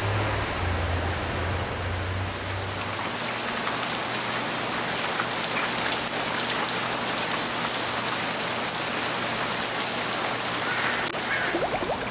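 Steady rain falling, an even hiss of drops on wet surfaces. A low vehicle engine hum sits underneath for the first few seconds and stops about three seconds in.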